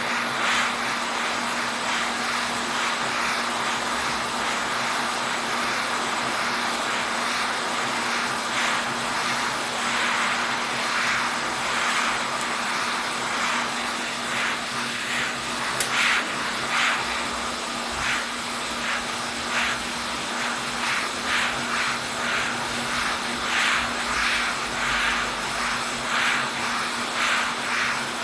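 Steady airflow hiss of a fan running at an electronics soldering bench, with a constant low hum under it. Faint scattered ticks of tools on the board run through it, with one sharper click about two-thirds of the way through.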